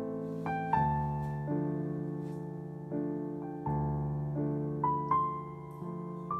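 Piano music: slow sustained chords with single melody notes over them, a new note or chord struck about every second and left to ring.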